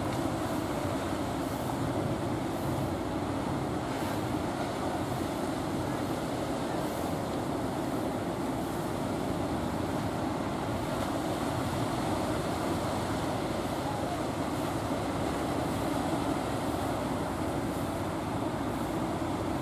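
Steady, even rumble of fishing-boat engines mixed with the wash of choppy water.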